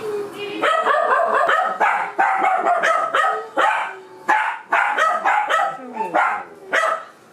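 A dog barking over and over in short, quick barks, about two or three a second, starting under a second in.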